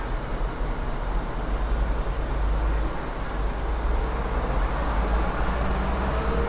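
Outdoor city ambience: a steady low rumble with a wash of traffic-like background noise.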